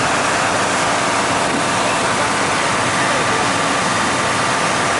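River slow boat's engine running steadily under a loud rush of water churning along the hull.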